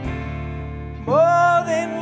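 Live band music in a slow, quiet passage: guitars and bass holding chords, with a louder, wavering melody line coming in about a second in.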